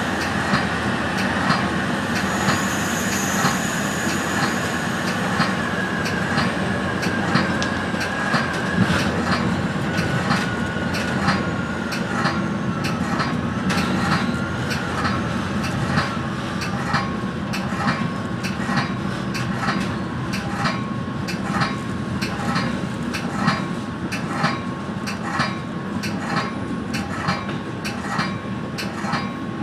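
Metra commuter train rolling through a rail yard, heard from inside its cab car: a steady rumble of wheels on rail with a high wheel squeal in the first few seconds. A tone slides slowly downward, and evenly spaced clicks repeat through the second half.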